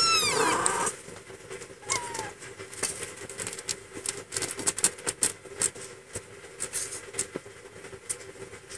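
Kittens squealing while they jostle at a nursing mother cat: a high mew falling in pitch at the start and a shorter one about two seconds in, followed by a stream of small clicks and scuffles.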